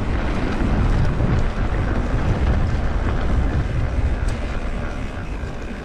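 Steady wind rush on a ride-mounted camera's microphone while mountain biking, with low rumble from the bike rolling over the trail.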